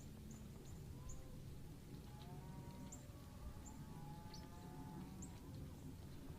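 Faint outdoor ambience: several distant animals calling in drawn-out, overlapping calls, mostly between about two and five seconds in, with short high bird chirps throughout and a low rumble underneath.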